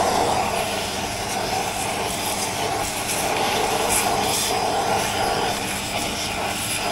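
Vacuum cleaner running steadily, sucking dust out of freshly drilled wall-box holes.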